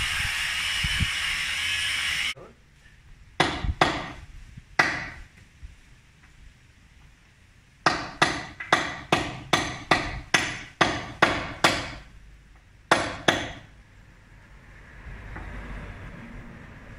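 Hammer blows on cast concrete steps being demolished, each a sharp strike with a short ring. There are three separate strikes, then a quick run of about nine at roughly two a second, then two more. A loud steady hissing whine cuts off suddenly about two seconds in, before the blows.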